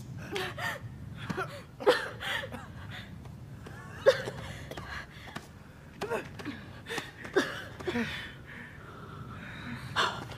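Short gasps and strained breaths from people, broken by a few sharp knocks, the loudest about two seconds in, about four seconds in and near the end.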